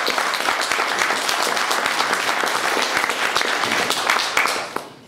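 Audience applauding, a dense steady clatter of many hands that dies away shortly before the end.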